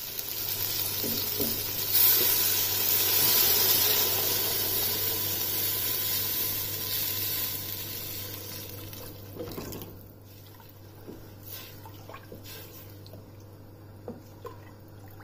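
Water poured from a jug into a stainless-steel pressure cooker of spice-fried whole lentils. The steady splashing pour swells about two seconds in and tapers off by about ten seconds. After it come a few light knocks as a wooden spoon stirs the pot.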